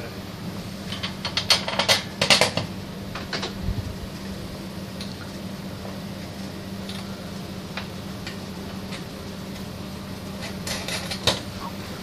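Metal bolts, washers and nuts clinking against each other and against the steel wire rack as they are fitted by hand: a cluster of sharp clicks about two seconds in, a few scattered ticks in the middle, and another cluster near the end.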